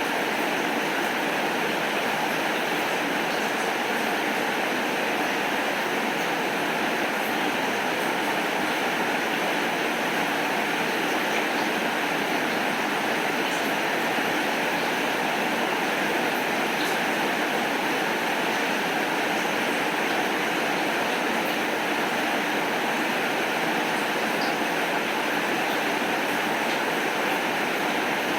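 Heavy rain falling steadily, an even hiss with faint scattered ticks of drops.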